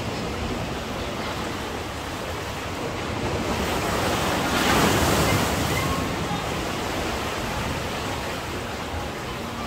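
Sea surf washing onto a beach, with one wave breaking louder about five seconds in and then fading back.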